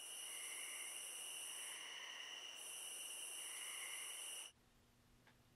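A steady chorus of crickets and other night insects, several high trilling tones layered together. It cuts off suddenly about four and a half seconds in, leaving only a faint low room hum.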